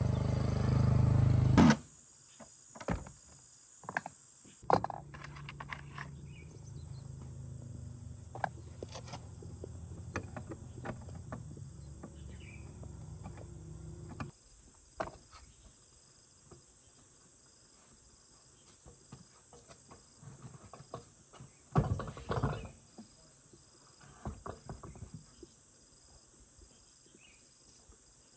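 A loud low hum cuts off suddenly about two seconds in, followed by scattered clicks and knocks. A quieter low hum runs for about ten seconds and stops, with a burst of knocks later on. Crickets chirp faintly and steadily throughout.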